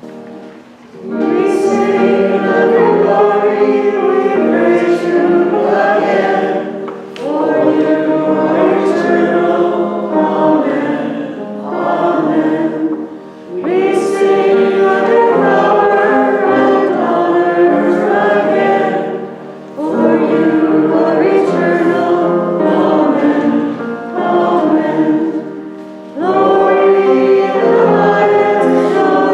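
Voices singing a hymn together in sung phrases, each lasting about six seconds and separated by short breaks.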